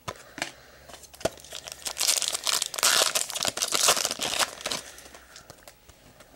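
Crinkling and tearing of a trading-card pack wrapper being opened, loudest for a couple of seconds in the middle, with a few light clicks before it.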